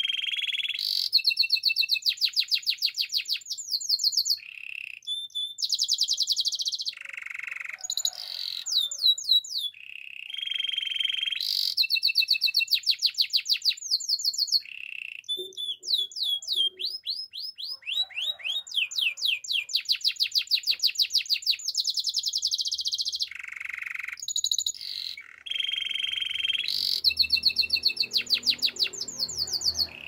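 Canary singing a near-continuous song of rapid trills, phrase after phrase of quickly repeated notes, some low and rolling, others high and ringing, with a run of sweeping falling notes midway.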